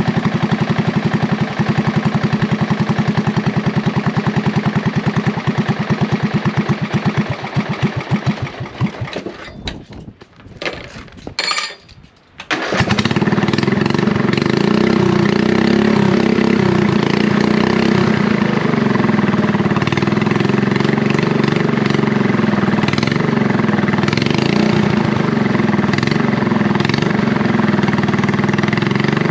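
Briggs & Stratton mower engine running, then slowing and dying away about ten seconds in. After a brief quiet pause it fires up again about thirteen seconds in and runs steadily.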